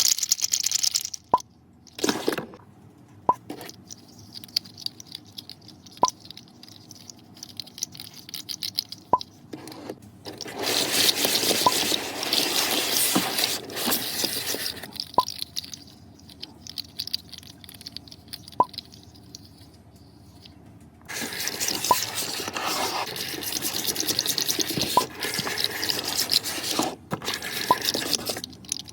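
Plastic fidget slug toy's jointed segments clicking and clacking as it is wiggled, in two long spells of rapid clatter, with single sharp clicks in between.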